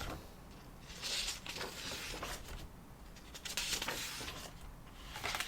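Soft rustling of paper as the pages of a hardback book are turned and handled, in a few short swells.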